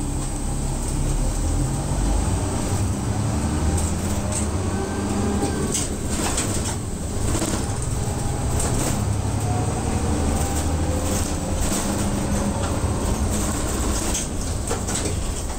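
Route bus's diesel engine and drivetrain running heard from inside the cabin as the bus gathers speed, with whining tones rising in pitch and some rattling around the middle and near the end.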